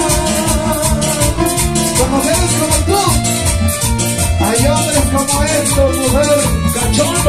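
Live Latin American dance band music: a steady beat under bass guitar and a melody line, with the quick rhythmic scraping of a metal güiro.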